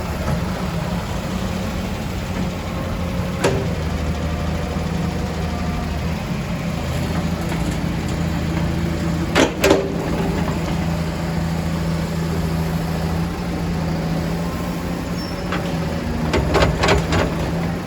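Heavy diesel vehicle engine running steadily at low speed. A few short, sharp knocks sound over it: one about three and a half seconds in, a pair around the middle, and a quick cluster near the end.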